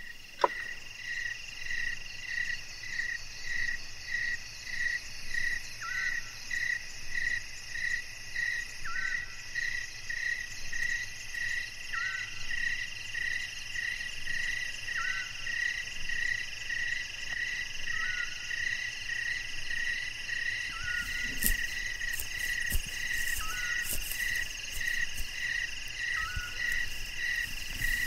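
Night chorus of frogs and insects: one call pulses steadily about twice a second over a steady high trilling, while a short, lower note repeats about every three seconds. From about three-quarters of the way in, faint rustles and clicks come in as well.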